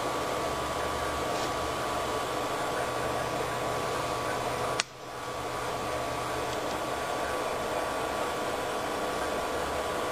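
Steady fan-like whirring hiss with a faint high tone running through it, broken once about five seconds in by a sharp click, after which the sound drops away briefly and swells back.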